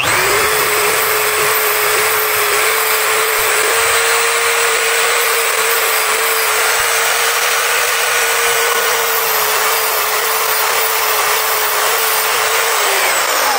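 CK Worldwide Turbo-Sharp X diamond-wheel tungsten grinder switched on and running with a steady whine while a tungsten electrode is spun against the wheel to sharpen its point. Near the end the motor is switched off and its pitch falls as it winds down.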